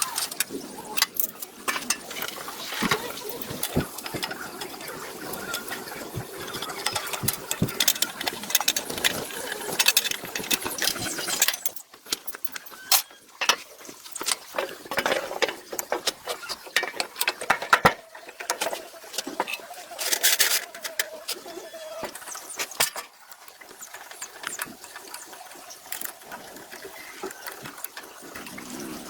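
Irregular sharp clicks and knocks over a noisy hiss, with a faint steady tone for a few seconds about two-thirds of the way through.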